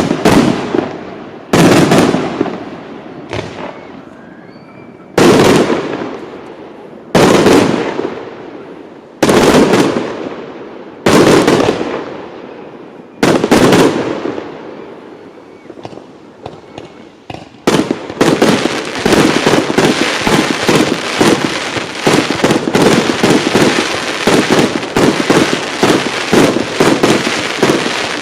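Fireworks display: about eight heavy single bursts roughly two seconds apart, each dying away over a second or two. About two-thirds of the way in, these give way to a dense, rapid barrage of bangs that keeps on firing.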